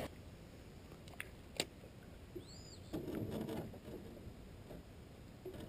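Faint lakeside ambience from a small aluminum boat on rippling water: a soft wash of water, two sharp clicks a little over a second in, and one short high chirp that rises and falls about two and a half seconds in.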